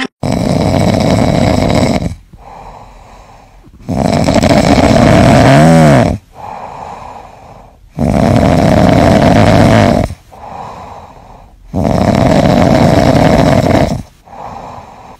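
A sleeping kitten snoring loudly: four long snores about four seconds apart, each followed by a quieter breath out.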